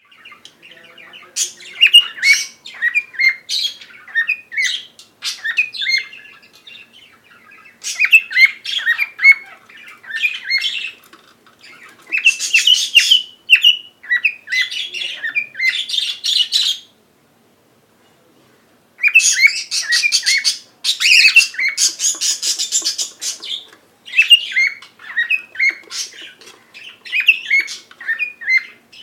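Cockatiel chirping and squawking in quick, repeated phrases of short whistled notes and harsher calls, with brief pauses between bursts and one silent gap of about two seconds past the middle.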